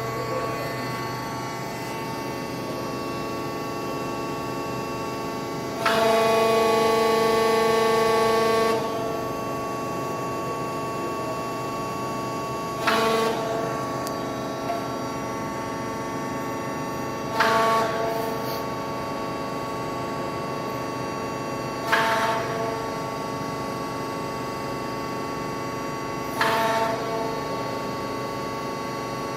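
HVS-145E drilling machine running with a steady hum of several fixed tones. About six seconds in it gets louder for about three seconds. Then it surges briefly four times, about every four and a half seconds, each surge fading away over about a second.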